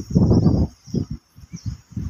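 Low rumbling bursts of noise on a phone microphone: one long burst in the first half-second, then a quick, irregular run of short thumps. Small birds chirp faintly above it.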